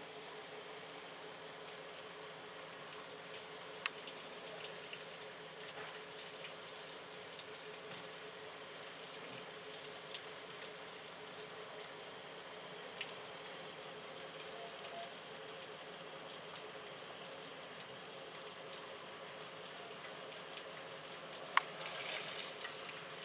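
Steady rain falling, an even hiss with scattered drops ticking, and a brief louder rush of noise near the end.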